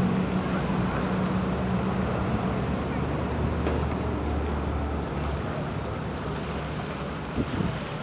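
Low steady engine drone from a large container ship passing close by, over outdoor wind noise. The drone fades about five seconds in, and a brief knock sounds near the end.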